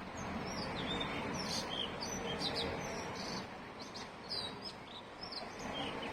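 Small birds chirping in short, quick notes, many calls scattered throughout, over a steady outdoor background hiss.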